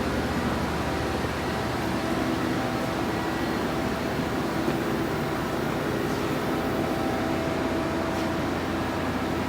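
Steady hum of industrial machinery, with several steady tones that hold unchanged throughout.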